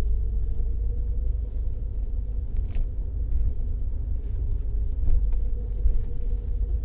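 Steady low rumble with a faint steady hum above it and a few light clicks, the kind of noise heard inside a moving car.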